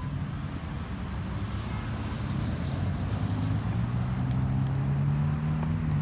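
Self-balancing hoverboard rolling on asphalt: a low steady hum and rumble from its wheel motors, growing louder about halfway through.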